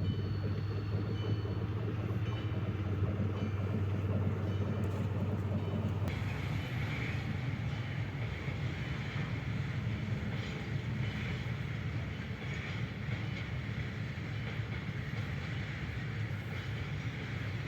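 Train running on rails: a steady rumble of the rail cars, whose sound shifts and grows brighter about six seconds in.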